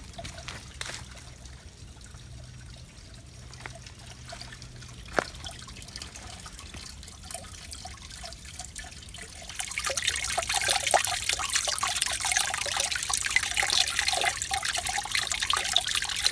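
Water from a trail spring trickling and splashing, growing much louder about two-thirds of the way through; a few faint knocks before it, one sharper than the rest.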